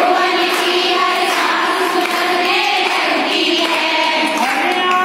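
A group of women singing together, several voices holding and changing notes at once.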